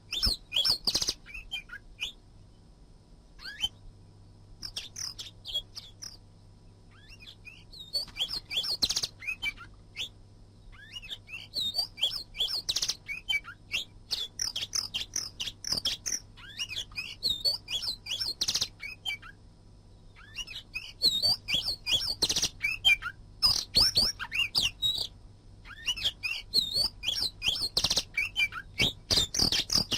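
Oriental magpie-robin (kacer) singing: rapid, varied chirps and whistles delivered in bursts of song with short pauses between phrases.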